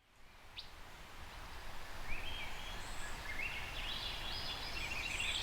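Outdoor ambience fading in from silence: a steady low rumble with small birds chirping and twittering from about two seconds in, growing busier near the end.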